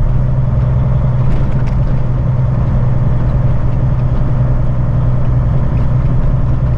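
Semi truck's diesel engine running steadily at low speed, a constant low drone.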